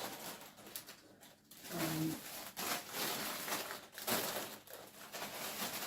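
Plastic shopping bags rustling and crinkling in repeated bursts as groceries are taken out. About two seconds in there is one short, low, steady hum-like tone.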